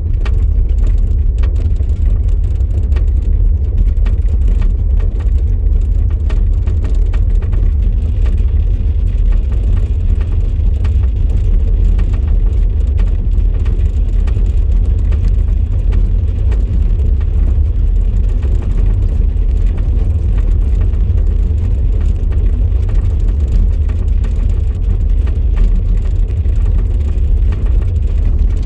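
Volkswagen e-up! electric car driving, a steady low road rumble with faint scattered knocks and ticks over it. The owner is chasing an annoying noise from the rear axle.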